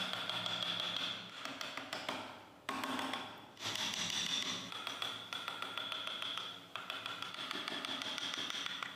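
Hand chisel tapping and scraping on wood, in stretches broken by short sudden pauses, over a steady high-pitched tone.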